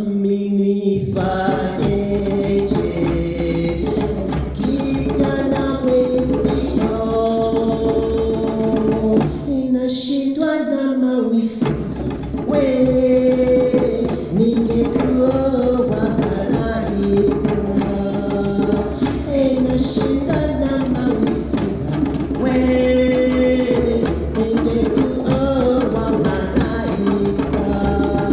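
Choir singing in harmony over drums. The low drum and bass part drops out briefly about ten seconds in, then returns.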